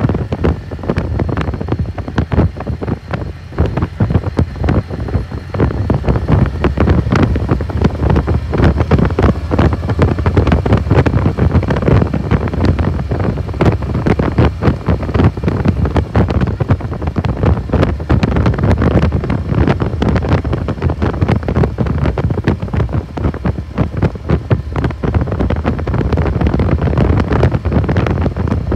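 Heavy wind buffeting the microphone on a moving motorcycle, over the steady low drone of the motorcycle engine at cruising speed.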